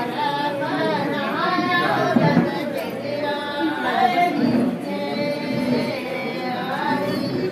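A group of women singing a traditional Himachali (Pahari) wedding song together, unaccompanied, in long held notes.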